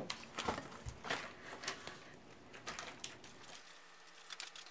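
Faint crinkling and rustling of snack wrappers and paper being handled, with scattered light clicks.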